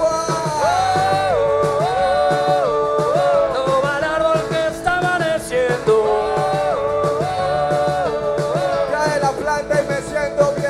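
Live rock band playing: a melody of held notes stepping up and down in repeated phrases over a steady drum beat.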